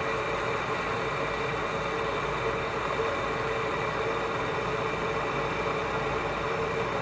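ELECHOMES electric gooseneck kettle heating a small amount of water toward the boil: a steady rushing hiss.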